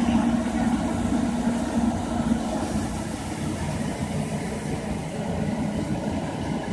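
Fire truck's diesel engine running at a steady drone, powering the pump that feeds the hoses and the aerial ladder's water stream.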